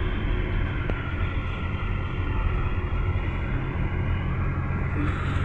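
Cabin noise inside a moving GAZ Gazelle Next (A64R42) minibus: a steady engine and road rumble.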